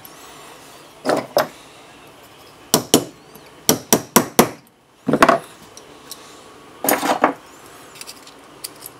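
Small gunsmith's hammer tapping a pin punch to drive a pin into a Sig Sauer P365 fire control unit: light metallic taps in short groups of two to four, with a few small clicks of the parts being handled.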